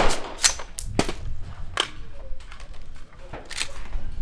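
Rifle shots on an outdoor firing line: several sharp reports at irregular intervals, the loudest right at the start.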